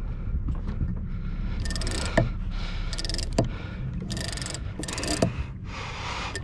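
Big-game fishing reel cranked in short bursts while gaining line on a hooked bluefin tuna: a rapid clicking whir with each spell of winding, about once a second, with an occasional sharp knock. A steady low rumble runs underneath.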